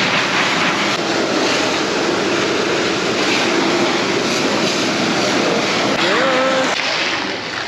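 Pressure washer spraying a steady, loud jet of water over a motorcycle.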